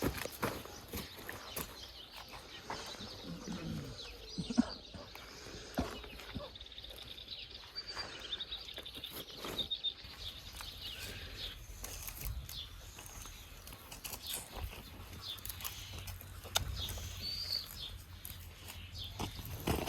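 Birds chirping outdoors, with a short trill partway through and another chirp near the end, over scattered sharp clicks and knocks and a low rumble in the second half.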